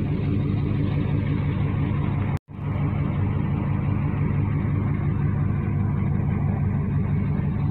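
A 1998 GMC Sierra's 5.7-litre V8 idling steadily, heard from inside the cab. The sound cuts out for a split second about two and a half seconds in, then carries on the same.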